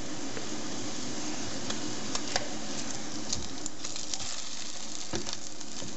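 Slices of Spam sizzling in a metal mess tin over a gas canister stove: a steady frying hiss with a few small pops and crackles.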